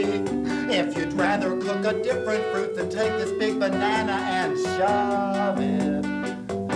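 Theme-song music carried by plucked string instruments over held notes.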